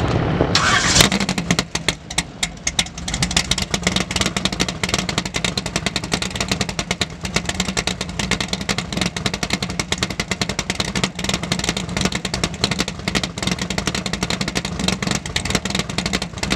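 Engine of an early-1950s Chevrolet mid-engine drag-racing pickup giving a quick rev about a second in, then settling into a loud, choppy idle with rapid uneven pulses.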